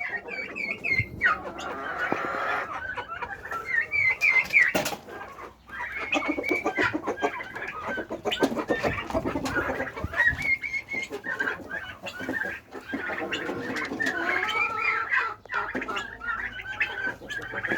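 A flock of chickens clucking and calling continuously, with many short, high, rising peeps mixed in.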